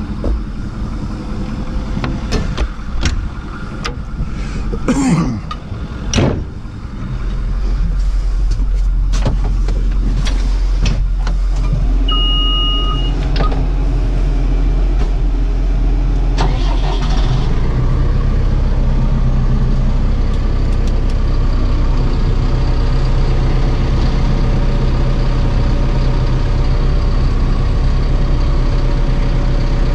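Caterpillar D5K LGP crawler dozer's diesel engine starting about seven seconds in, then running steadily and stepping up to a higher, louder speed around eighteen seconds in. Before it there are knocks and clatter of climbing into the cab, and a single beep sounds from the controls about twelve seconds in.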